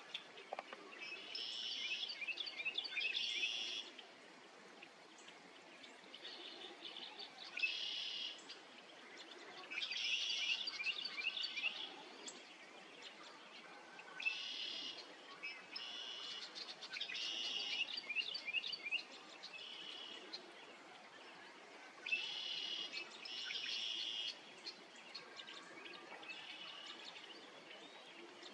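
Trilled animal calls, high-pitched and rapidly pulsed, each lasting a second or two and repeated every few seconds, some overlapping, over a faint steady hiss.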